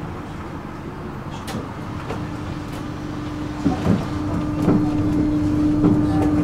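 Tram running: a low, steady rumble, joined about two seconds in by an even hum that grows louder, with a few short knocks along the way.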